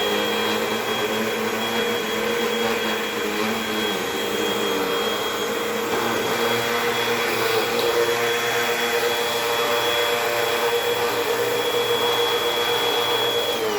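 Upright vacuum cleaner running on carpet, a steady motor whine over rushing air. Near the end its pitch falls away as the motor winds down.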